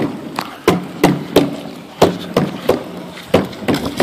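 A rapid, uneven series of sharp echoing bangs, about two to three a second, from tear gas launchers firing volleys.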